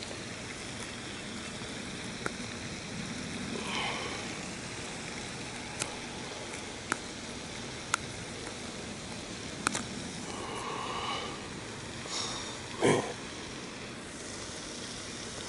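Handling noise while a largemouth bass is unhooked by hand: a handful of sharp, separate clicks a second or two apart and one louder thump near the end, over a steady background hiss.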